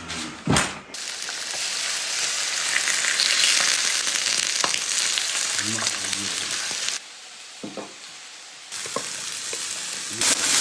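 Sliced marinated beef sizzling on a hot grill, a dense steady crackling hiss that drops quieter for a couple of seconds past the middle, with a single thump near the start.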